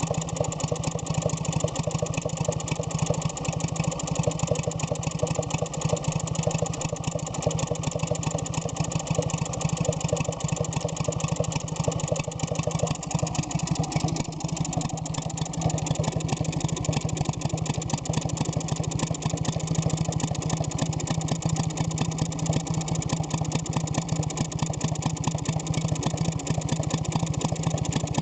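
Freshly rebuilt Villiers WX11 single-cylinder two-stroke, water-cooled stationary engine running steadily at an even pace.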